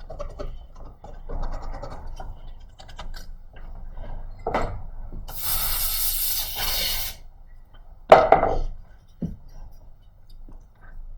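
Small scrubbing and scratching sounds of cleaning an iPhone 6 Plus logic board, with a hiss of spray or air for about two seconds midway. A loud knock about eight seconds in.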